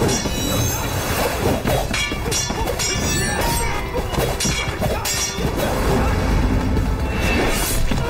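Action music over a staged sword fight, with repeated sharp clashes and hits throughout.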